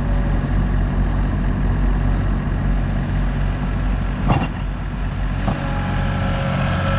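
Farm vehicle engine running steadily at an even speed, with a single sharp click about four seconds in.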